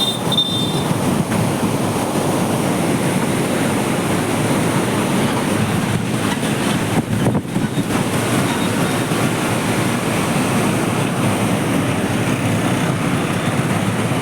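Steady rushing of a large volume of water pouring through the open sluice gates of a river barrage, an even noise without pitch or rhythm.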